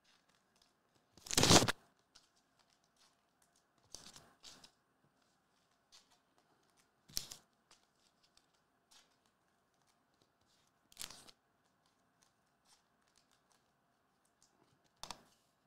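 Topps Chrome basketball trading cards being handled and slid against one another: five brief swishes, the loudest about a second and a half in and the rest fainter, spread out with pauses between.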